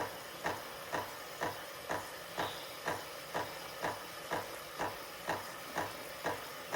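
Automatic espresso machine with a milk carafe running through a latte cycle: a steady hiss with a regular pulse about twice a second.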